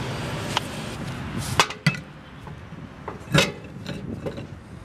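Sharp metal knocks and clinks as a steel van wheel is fitted back onto the hub and its studs: a handful of single strikes, the loudest about a second and a half in and again about three and a half seconds in. A steady rushing background drops away after the first second and a half.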